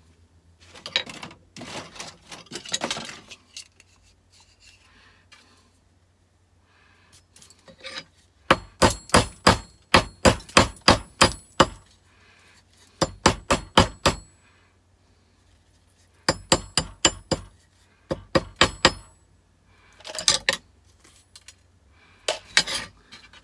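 Hammer striking small electronic components to break them apart for scrap. The blows come in quick runs of ringing strikes, about four a second, with short pauses between the runs, and a few lighter clinks before the first run.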